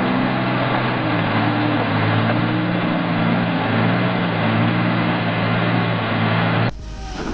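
A vehicle engine running steadily under a wash of mechanical and road noise, its low tones holding nearly level. It cuts off abruptly near the end.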